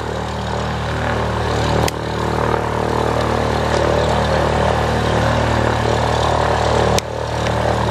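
A steady low mechanical drone runs throughout. Over it come two sharp clicks, about two seconds in and again near the end, from a click-type torque wrench breaking over at its set torque (100 inch-pounds) on the aircraft brake caliper bolts.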